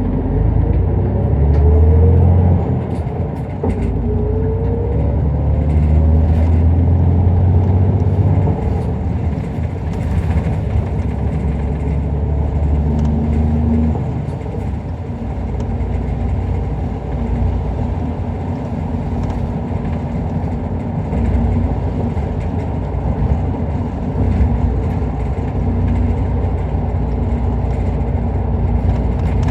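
Isuzu Erga Mio city bus heard from inside the cabin: the diesel engine climbs in pitch twice in the first several seconds as the bus accelerates through the gears, with a heavy low rumble. From about halfway through it settles into a steadier, slightly quieter cruising drone.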